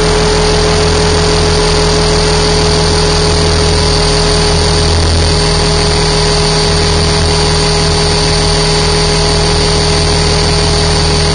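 T-Rex 550 RC helicopter in flight, heard from a camera mounted on its own airframe: a loud, steady whine of motor and gears over the rushing noise of the rotors.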